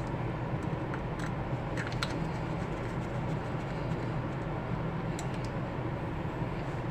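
A few faint small clicks and scrapes as a wire is fitted and fastened at a light switch's screw terminal, over a steady low hum.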